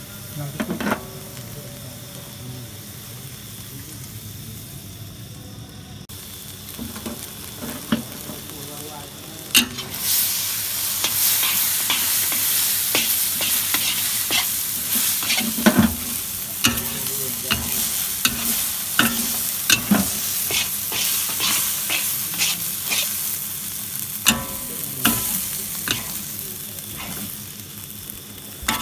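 Mie Aceh noodles and beef frying in a large wok, sizzling while a metal spatula stirs and tosses them. About ten seconds in the sizzling turns much louder, with frequent sharp scrapes and clacks of the spatula against the wok.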